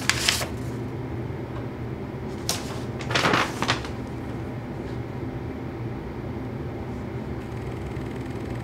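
A few short rustles and handling noises, one near the start and a cluster about two and a half to three and a half seconds in, over a steady low hum.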